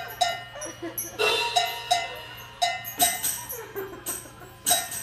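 A trained cat striking the metal percussion of a small drum kit: irregular clanking hits with a short bell-like ring, roughly two a second with brief pauses.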